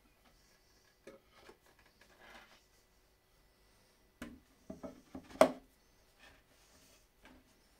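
Wooden knocks and clunks as turned stool legs are pushed into the seat's mortises and the stool is handled. A few light taps and rubs come first, then a quick cluster of knocks about four to five and a half seconds in, the last of them the loudest.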